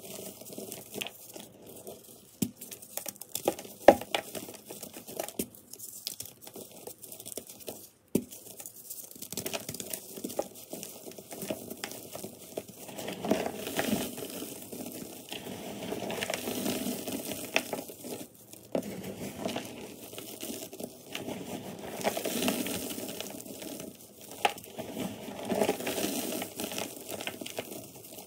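Blocks of reformed gym chalk crushed and crumbled between bare hands: dry, irregular crunching and crackling as the pieces break and powder sifts down, with a sharp snap about four seconds in. The crumbling grows denser and louder in two long stretches in the second half.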